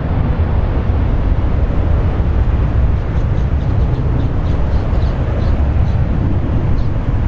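Twin-engine jet airliner at takeoff power, rolling down the runway and lifting off: a loud, steady, deep rushing roar of the engines with no distinct tones.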